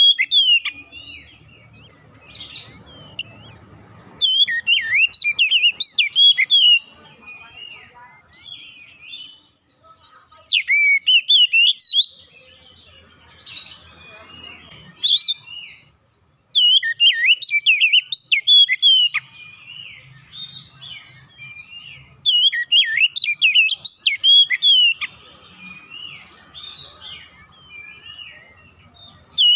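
Oriental magpie-robin singing: several loud bouts of rapid, varied whistles and chirps, each a few seconds long, with softer twittering between them.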